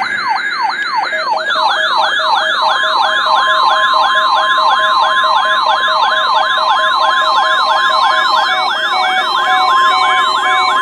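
Weather alert radio receivers sounding their siren-style alarms, several fast rising-and-falling wails overlapping at about three to four sweeps a second, with a second alarm joining about a second and a half in. From about three seconds in, a steady high tone of the NOAA Weather Radio warning alarm, the test signal that sets the receivers off, holds beneath them.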